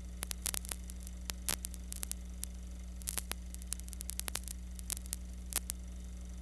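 Steady electrical hum with irregular crackling clicks and pops, the static of an old film transfer with no recorded soundtrack.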